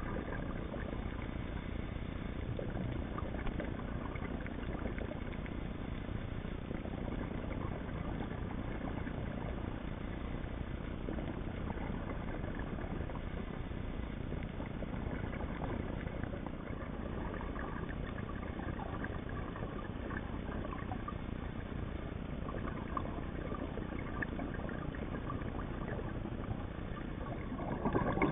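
Steady, muffled underwater rumble and hiss picked up by a camera in its underwater housing, with no distinct events.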